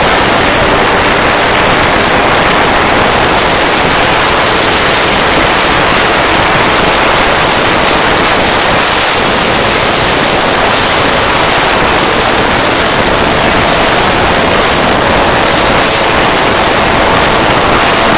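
Steady, loud rush of wind on the microphone over the engine of a weight-shift ultralight trike running at full throttle through the takeoff roll and lift-off.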